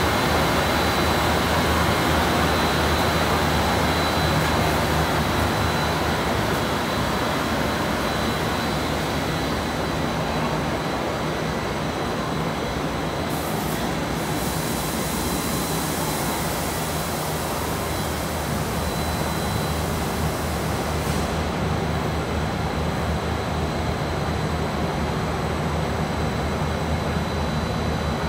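Three-layer blown film co-extrusion line running: a steady machinery drone with a low hum and a thin, steady high whine.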